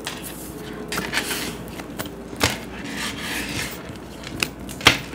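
Tarot cards being handled and shuffled on a table: papery rubbing and swishing, with a few sharp taps of the deck or cards against the tabletop, the loudest near the end.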